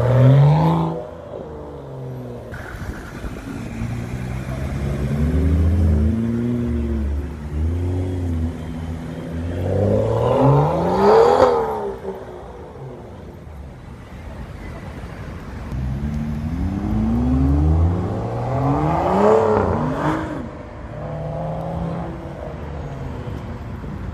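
Sports car engines revving and accelerating hard, with the engine pitch climbing through the revs and dropping away as the cars pass. Each run peaks briefly: once at the very start, then louder passes about eleven and nineteen seconds in.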